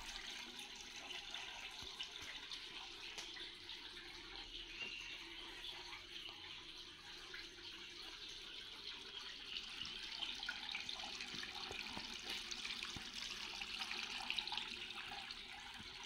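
Small pump-fed tabletop water fountain running: a thin stream of water falling from a spout and splashing steadily into a shallow bowl and basin below.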